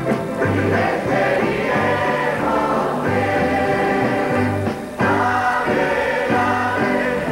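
Large mixed church choir singing a Pentecostal hymn, accompanied by a band of strummed acoustic guitars, mandolins and an accordion over a regular bass line. There is a short break between phrases about five seconds in.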